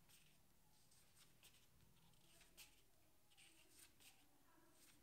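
Near silence, with several faint rustles and ticks of card flash cards being handled and swapped from one to the next.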